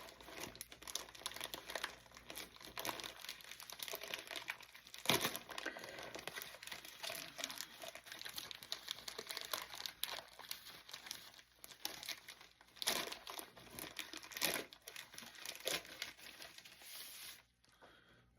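Parcel packaging crinkling and tearing as it is opened by hand, an irregular crackle with a few louder sharp rips; it stops about a second before the end.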